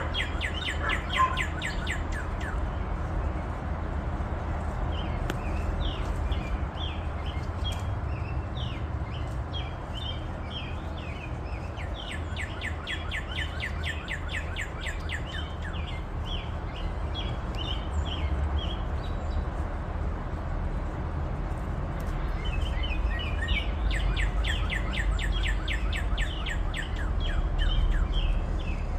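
Birds chirping in bouts of quick, rapidly repeated high notes, several runs with pauses between, over a steady low rumble.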